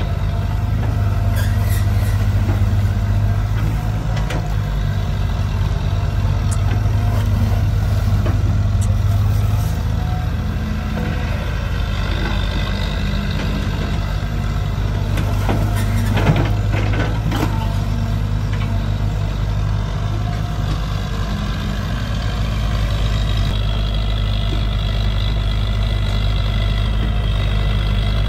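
Sumitomo hydraulic excavator's diesel engine running steadily as the machine digs mud, a low hum with a higher whine over it. A single knock about sixteen seconds in.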